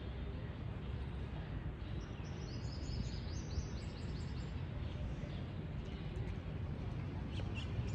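Steady low rumble of outdoor background noise, with a bird giving a quick run of high chirps that climb in pitch about two seconds in.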